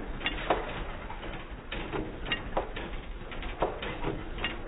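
United hit-and-miss gas engine running, with uneven clicks and knocks over a steady low hum.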